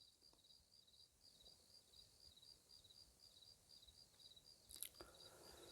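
Near silence with faint, high, evenly pulsed insect chirping, about three or four chirps a second.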